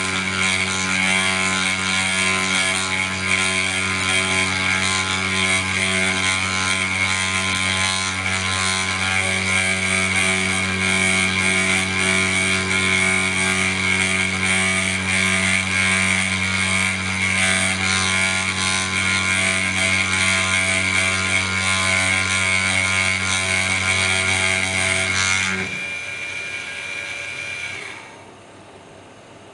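Snapmaker CNC carving spindle running steadily, with a high whine over a low hum while it cuts. Near the end the cutting noise and hum stop, the whine carries on for about two seconds, then it goes quiet.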